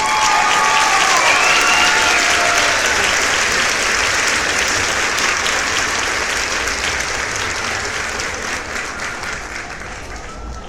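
Crowd applause, dense clapping with a few cheers in the first seconds, slowly fading out.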